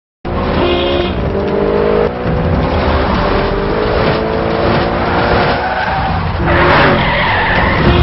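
Title music with racing-car sound effects: engine and tyre-skid noise under steady chords, with a louder tyre screech about six and a half seconds in.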